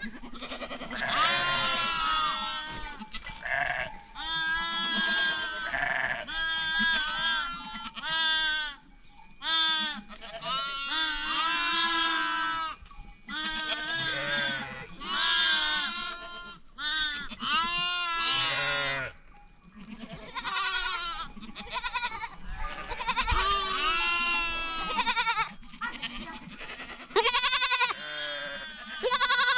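A herd of goats bleating, many calls overlapping with hardly a break, and a few louder calls near the end.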